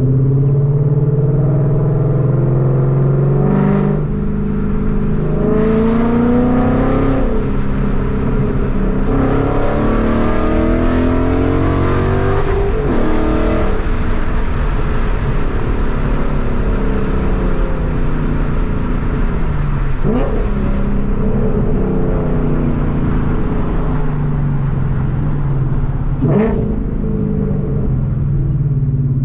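A Ford Mustang's 5.0 V8 with long-tube headers, heard from inside the cabin, accelerating hard through several gears. The engine note climbs and drops back at each shift, then falls steadily as the car eases off. Two short thumps come in the second half.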